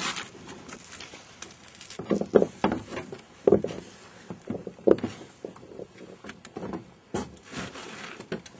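Irregular hollow thumps and knocks of footsteps inside a canoe as a person steps along its hull to the stern.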